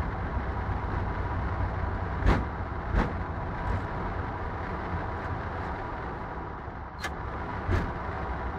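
Steady low rumble inside a Boeing 777 cockpit as the airliner rolls out along the runway after landing, with a faint steady tone above it. A few sharp knocks stand out, two about two and three seconds in and another near the end.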